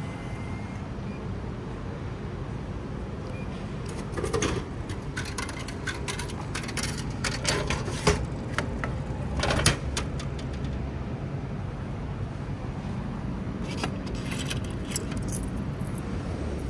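Vending machine working through a sale: clicks and clatter as the item is delivered and the product flap is opened, then a burst of small metallic clinks near the end as coins of change drop out. A steady low rumble of passing traffic runs underneath.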